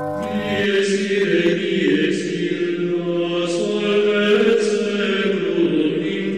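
Slow chanted singing: long held vocal notes that change pitch every second or so.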